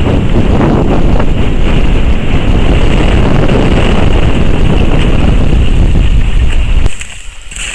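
Strong wind buffeting the camcorder's microphone: a loud, steady low rumble that drops away suddenly near the end.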